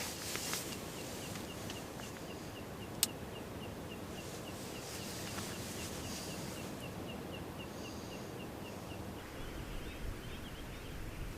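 A rapid series of short, high chirps from a small animal, about three a second, over a steady rushing background noise. A single sharp click about three seconds in.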